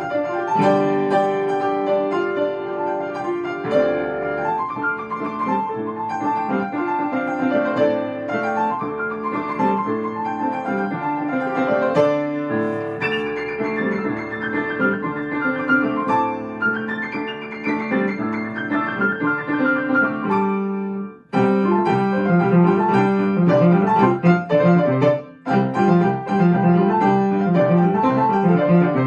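Piano playing a piece of many quick notes, with a brief break a little past three-quarters of the way through before the playing resumes.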